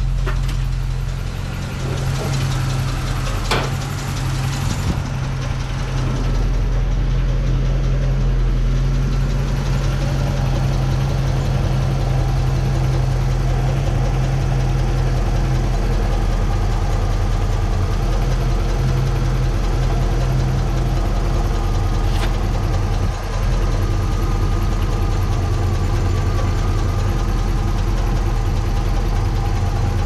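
International Scout V8 idling hot, a steady even running sound with its oil pressure sagging as it warms. There is a short sharp click about three and a half seconds in.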